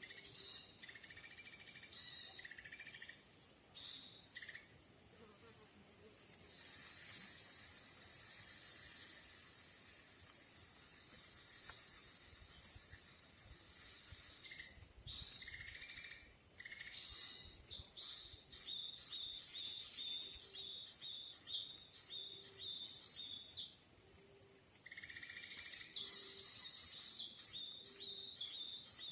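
Small songbirds calling high and shrill. A long unbroken trill lasts about seven seconds, then come runs of rapid repeated notes, and a faint low note recurs every couple of seconds in the second half.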